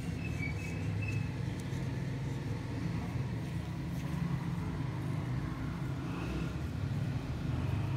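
A steady low background rumble with no clear events.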